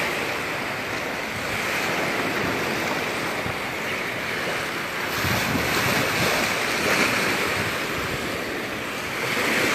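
Small surf waves breaking and washing up on a sandy beach, swelling and easing, with wind buffeting the microphone.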